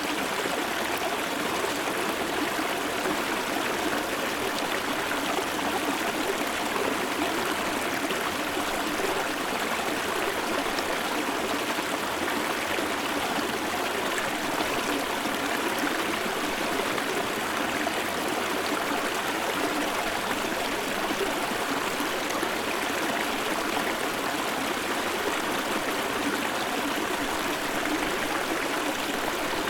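River water flowing steadily at close range, in a low, nearly dry river.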